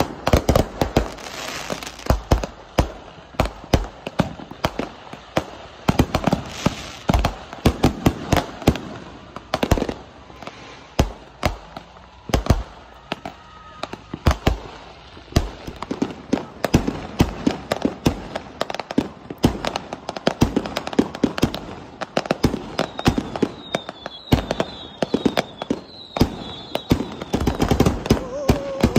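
Consumer fireworks going off in quick succession: irregular bangs, pops and crackles from aerial shells, rockets and firecrackers, with a few faint short high whistles later on.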